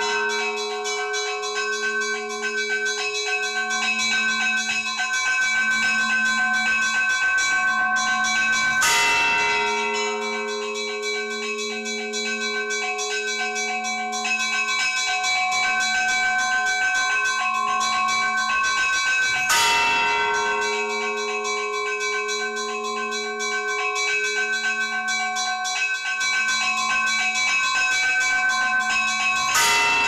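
Church bells ringing: several bells sound together in a dense, sustained peal. A heavy stroke rings out about every ten seconds, three times.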